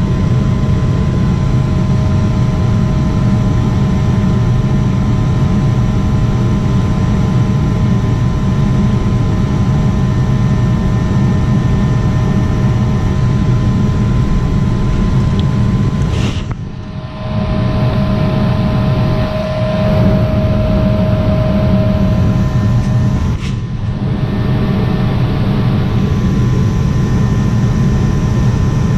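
Lennox ML193 gas furnace running steadily through a heat cycle, a continuous low rumble of blower and combustion with a faint steady hum, which briefly dips twice. It stays lit with good draft here, while its suspected faulty pressure switch is watched for fluttering.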